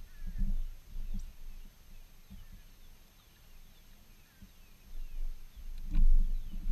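Faint, repeated falling chirps of birds, broken by irregular low thumps and rumbles, the loudest about half a second in and around six seconds in, where a sharp click comes with it.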